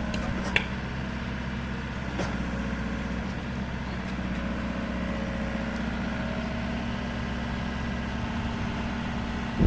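Excavator engine idling steadily, with a couple of light clicks in the first few seconds.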